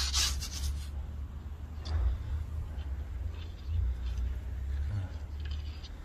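Rubbing and scraping handling noise over a low steady rumble. A few short louder rustles break through, the loudest at the very start.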